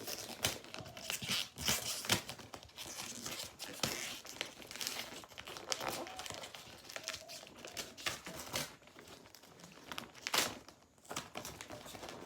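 Gift wrapping paper being crinkled and torn off a present by hand, a run of irregular rustles and crackles with sharper tears here and there.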